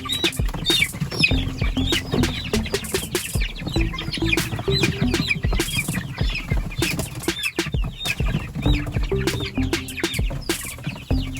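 A crowd of four-week-old chicks peeping continuously, many short high calls overlapping, over background music, with scattered knocks.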